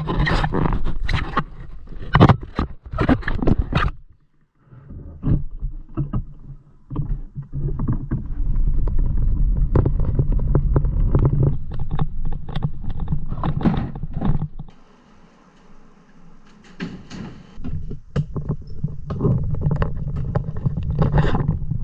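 Motorboat running with a steady low engine hum, overlaid by irregular knocks and buffeting. The sound drops away briefly about four seconds in and again for a couple of seconds about two-thirds of the way through.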